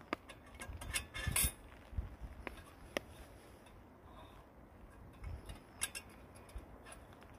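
Metal pot-support bar clinking and scraping against the slots of a firebox-style wood stove as it is fitted across the top: scattered sharp metallic clicks, with a short clatter about a second and a half in.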